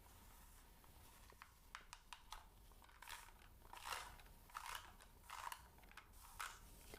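ASMR ear-cleaning sounds: quiet, crackly scratching and clicking close on the microphone. The clicks are sparse at first and come in denser clusters from about three seconds in.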